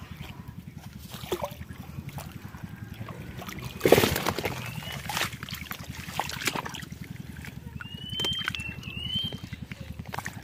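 Water sloshing and trickling as a fish trap is handled and emptied, with a louder splash about four seconds in. A steady low throb runs underneath, and there are a few short chirps near the end.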